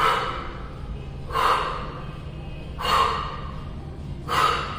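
A woman exhaling sharply, four times at about one-and-a-half-second intervals, once with each crunch of a dumbbell toe-tap exercise.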